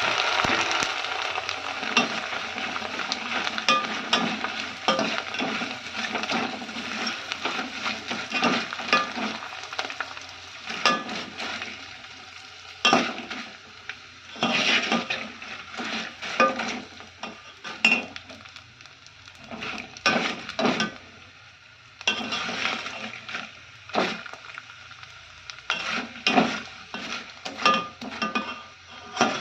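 Flattened rice (poha) frying in hot oil in a large pan. A steady sizzle runs under frequent scrapes and clicks of a spatula stirring against the metal. The sizzle is dense for the first half and thins out later, leaving the stirring knocks more apart.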